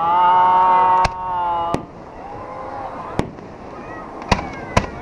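Aerial fireworks going off in a string of about five sharp bangs. Over the first bangs a spectator gives a long, loud "wow".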